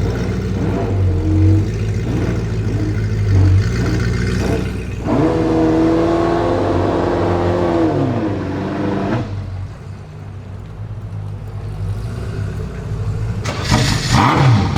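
Ferrari F40 LM's twin-turbo V8 through a straight-pipe exhaust, revving. It runs with small blips, holds a higher rev for about three seconds before dropping back to a quieter idle, then is blipped hard with sharp pops near the end.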